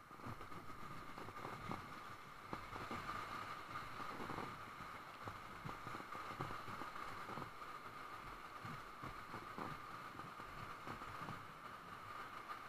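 Whitewater of a river rapid rushing steadily around an inflatable raft, with irregular low splashes and thumps throughout.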